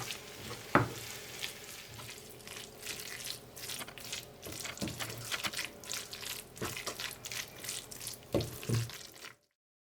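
Pot of chakalaka (vegetables and beans in sauce) sizzling and bubbling on low heat while being stirred, with a spoon knocking against the pot a few times. The sound cuts off suddenly near the end.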